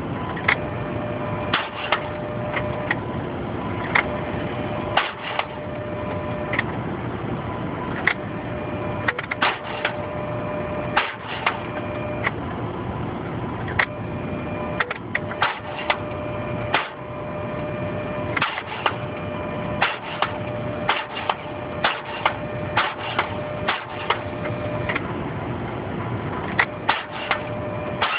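Jeep Wrangler being cranked over and over without catching, with many sharp clicks scattered through it and a steady tone coming and going. This is a no-start: the engine does not fire.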